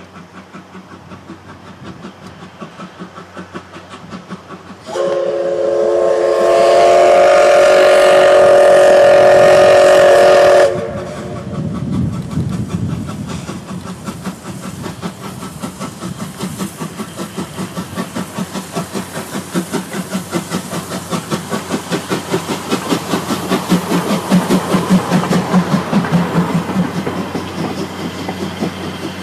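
Japanese C11 steam tank locomotive C11 123 working a train with rhythmic exhaust chuffs. About five seconds in it sounds one long multi-tone steam whistle blast, about six seconds long, that cuts off sharply. The chuffing then grows louder as the engine passes, with the coaches' wheels clattering over the rail joints.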